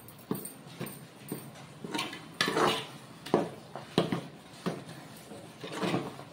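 Metal ladle stirring thick ragi sangati in an aluminium pot: a series of knocks and scrapes against the pot, about one every half second.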